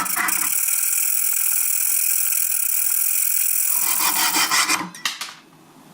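A saw cutting into the stainless steel shaft of a micro screwdriver: a steady high-pitched scraping of metal for about four seconds, then a few shorter strokes, falling quiet near the end.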